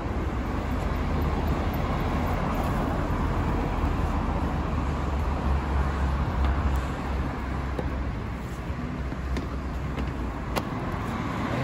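Open-air street ambience: a steady low rumble of road traffic, with a few light clicks of utensils on the table, one sharper click near the end.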